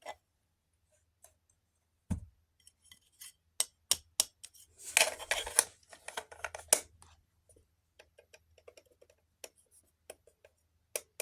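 Handling noise from a fire alarm unit being moved about: a low thump about two seconds in, then scattered sharp clicks and knocks, with a short scraping rattle around the middle.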